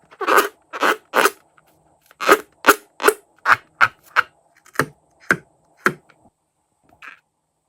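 A quick run of about a dozen short, sharp pops, two or three a second, that stops about six seconds in.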